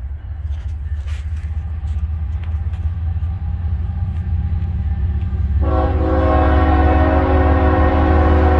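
Diesel locomotive air horn sounding one long, steady chord that starts a little over halfway through. Under it a low rumble builds steadily louder.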